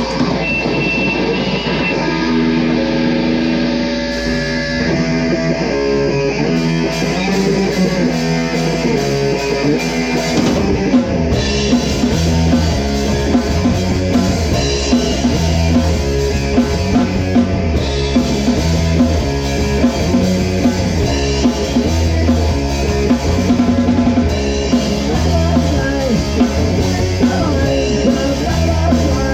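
Rock music with guitar and drums: an intro of held guitar notes, then the bass and full drum kit come in about ten seconds in with a steady beat.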